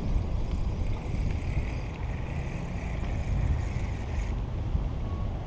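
Wind buffeting the microphone in a steady low rumble, with the whir of a spinning reel being cranked for about three seconds in the middle as a small fish is reeled in.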